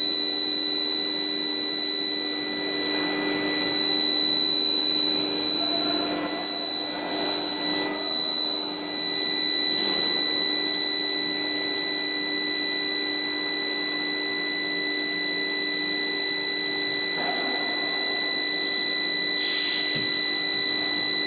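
Induction heating furnace running, a steady high-pitched whine with a lower hum beneath it.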